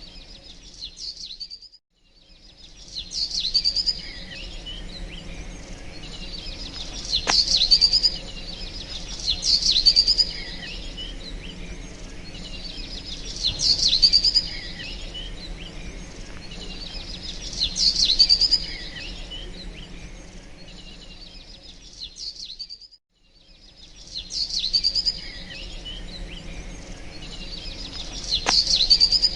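Birds chirping and calling in a dense, overlapping chorus that swells into loud bouts every few seconds. The sound cuts out abruptly twice, about two seconds in and again near the three-quarter mark.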